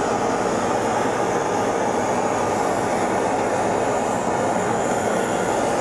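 Handheld kitchen blowtorch burning with a steady, even flame noise as it sears sliced chicken.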